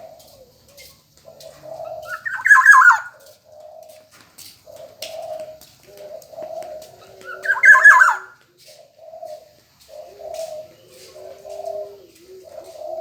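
Black-naped oriole calling: two loud, harsh calls about five seconds apart, with softer low, cooing notes repeating between them.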